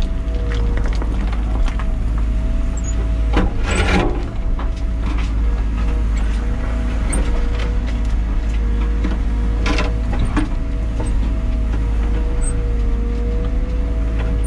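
Liebherr 914 Compact wheeled excavator heard from inside the cab: the engine runs steadily under a hydraulic whine that wavers in pitch as the boom and tiltrotator bucket move. A loud burst of dirt and stones scraping and rattling comes about three and a half seconds in, and a shorter one near ten seconds.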